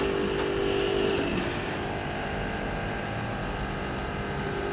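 Steady mechanical hum of rooftop air-conditioning outdoor units, with a pitched drone that fades about a second and a half in, and a few light clicks of small metal parts being handled.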